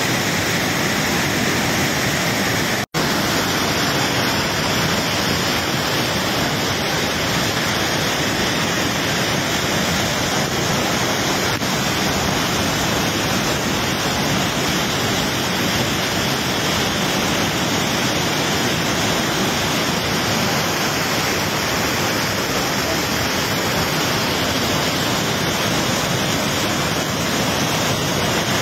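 Steady roar of a waterfall in spate, swollen by heavy rain, with floodwater rushing down the gorge. The sound cuts out for a split second about three seconds in.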